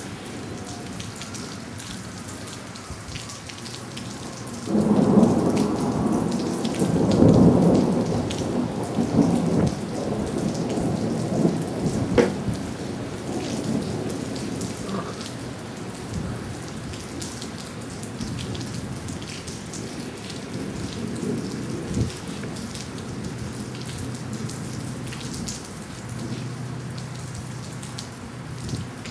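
Steady rain falling through a thunderstorm. About five seconds in, a peal of thunder breaks suddenly and rolls on for several seconds before fading away, with a couple of sharp clicks later on.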